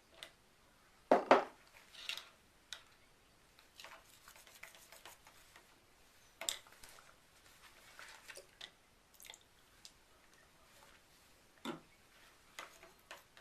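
Small containers and utensils being handled and set down while soap colorant is mixed: scattered light clicks and knocks, with two louder knocks about a second in.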